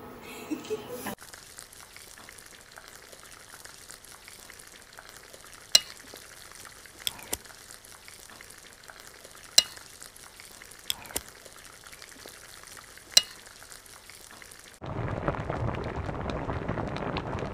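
Metal ladle clinking sharply against pots and bowls a handful of times while curry is served out. Near the end comes a louder, steady bubbling from a saucepan boiling on an induction hob.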